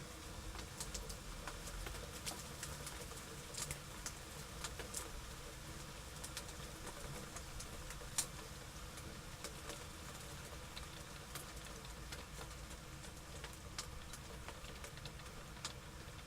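Rain falling during a thunderstorm: a faint steady hiss with irregular sharp drop ticks, the loudest about eight seconds in.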